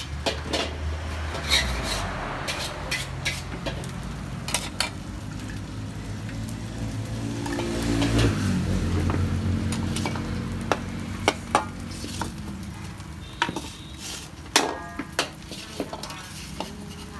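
Bánh xèo frying in lard in aluminium pans: steady sizzling, with sharp clicks and scrapes of a metal spatula against the pans. A low rumble swells and fades about halfway through.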